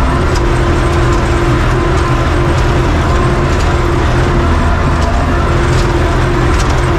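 UTB 650 tractor's four-cylinder diesel running steadily under load, driving a Claas drum mower that is cutting.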